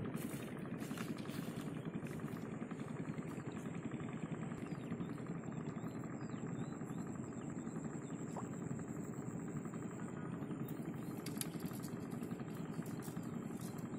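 An engine running steadily, a low continuous drone.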